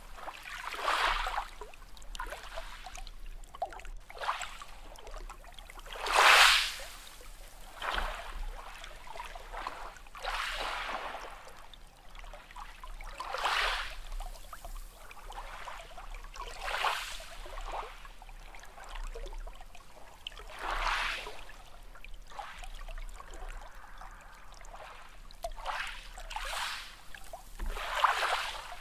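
Small sea waves lapping and washing in, one swell of water noise every few seconds at uneven intervals, the biggest about six seconds in.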